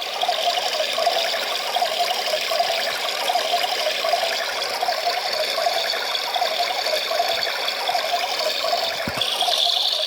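Battery-powered toy washing machine running: a small motor hum pulsing evenly as the little drum turns, with water sloshing inside. A small click about nine seconds in.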